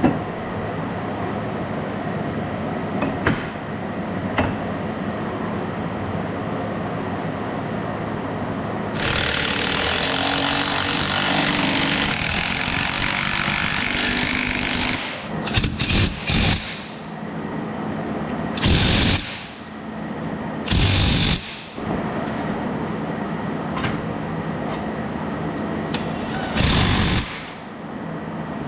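A power tool running in short bursts of about a second each, with one longer run of about six seconds about a third of the way in, over a steady mechanical hum.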